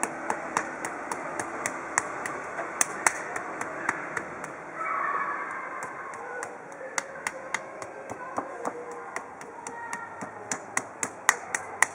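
Sharp, crisp clicks made by a massage therapist's hands, irregular at about two or three a second and coming faster near the end, over a steady background hum.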